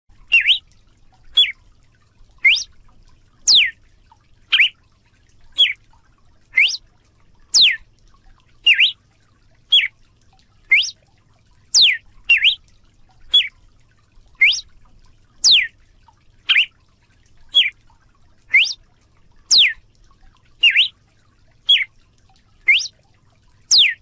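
Galo-de-campina, a South American Paroaria cardinal, singing a steady series of short, clear whistled notes about one a second. The notes alternate between quick upward and downward slurs.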